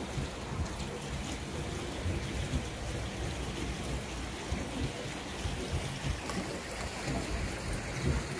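Wind buffeting the microphone: a steady rushing noise with uneven low rumbles.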